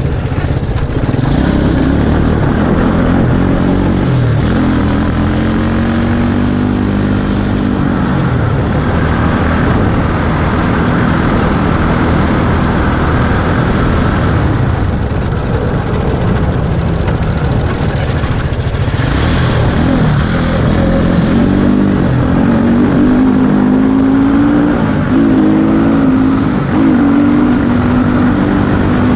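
Go-kart engine running hard under load, its pitch climbing as it accelerates, easing off about eight seconds in, then climbing again through the second half, with road and wind noise.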